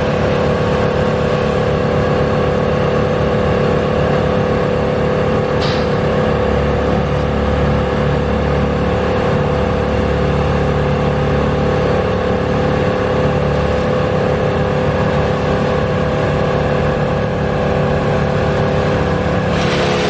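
Large engine of tree-service equipment running steadily at constant speed, with a steady whine over it. A deeper rumble swells in for several seconds in the middle, and there is a single click about six seconds in.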